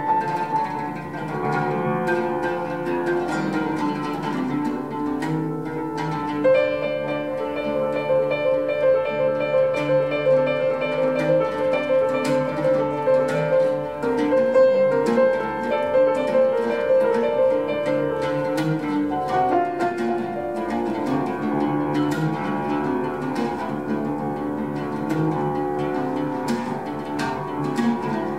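Live oud and acoustic grand piano duet, improvised-sounding: plucked oud notes over piano. A higher, rapidly repeated note comes in about six seconds in and holds for around twelve seconds before the music shifts.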